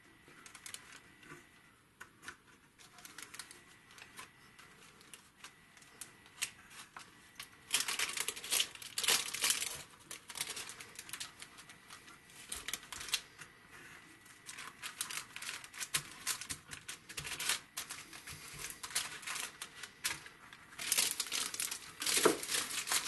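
Clear plastic sheeting crinkling as it is handled and pulled out of a felt-lined case, in two louder spells: about a third of the way in and again near the end. Light clicks and taps come in between.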